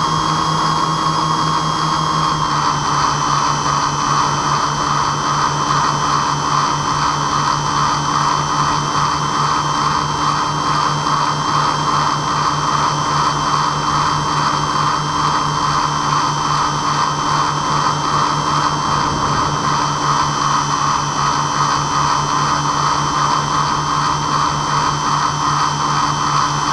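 Twin motors and propellers of an RC airplane droning steadily in flight, heard from a camera on board the plane. The pitch steps down slightly about two and a half seconds in, then holds level.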